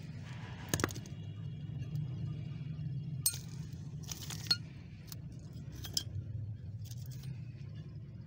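Rusty metal tools and parts clinking against each other and the ground as they are picked through by hand: a handful of short sharp clinks spread over several seconds, over a steady low hum.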